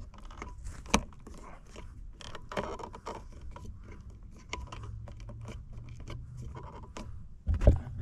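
Small scrapes and clicks of hands working a cable and plastic push-in cable connector at a metal junction box, with one sharp click about a second in. A few heavier thumps near the end.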